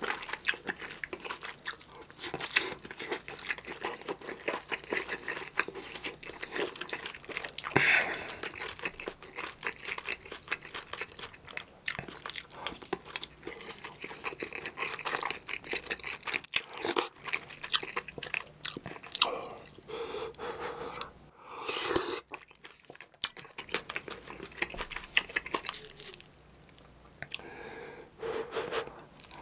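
Close-miked eating sounds: wet chewing and crunching of spicy kimchi stew with rice, with many small mouth clicks and smacks. There is a short lull about two-thirds of the way through.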